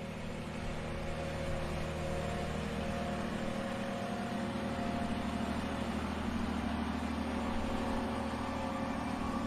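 A steady engine drone with a low hum and rumble, fading in and building gradually louder.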